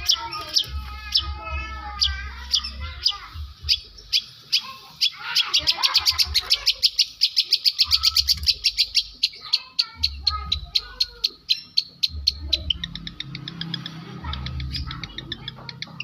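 Long-tailed shrike (cendet) singing a long, varied mimicry song that mixes in lovebird-like and canary-like phrases: rapid chattering trills alternate with warbling phrases that rise and fall. Short bursts of low rumble recur every couple of seconds underneath.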